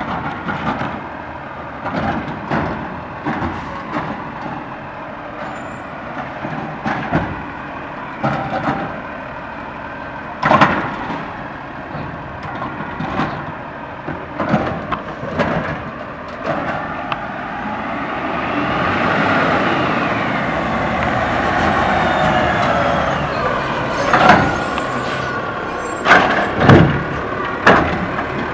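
Autocar ACX garbage truck with a Dadee Scorpion automated side-loader arm: a run of clunks and bangs as the arm shakes a cart out over the hopper, then the engine revs up and back down, with a whine that rises and falls, as the truck moves to the next cart. Near the end come more loud clunks as the arm grabs and lifts the next cart.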